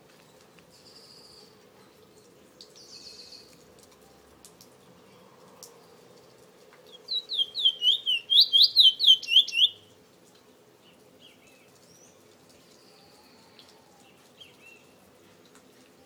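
Caged Trini bullfinch (chestnut-bellied seed finch) singing: a quick run of about a dozen loud, sweeping high notes lasting about three seconds midway, with a few faint chirps before and after.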